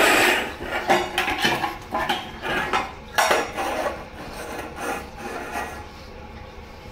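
Two pugs scuffling at play over a steel dog bowl on a tile floor: a run of irregular rasping, scraping noises that dies down about six seconds in.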